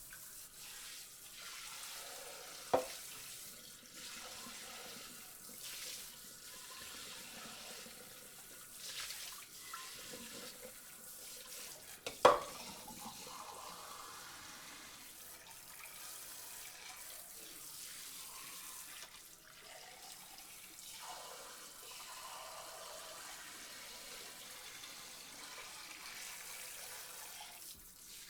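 Water sprayed over dishes in a sink, a steady hiss of spray that swells and eases now and then, with two sharp knocks, about three seconds in and about twelve seconds in.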